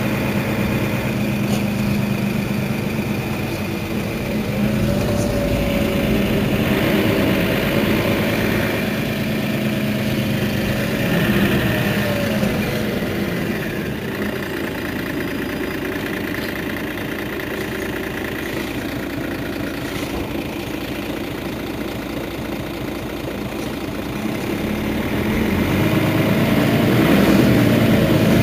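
Diesel engine of a Mercedes-Benz Citaro facelift city bus idling steadily at a standstill, growing louder near the end.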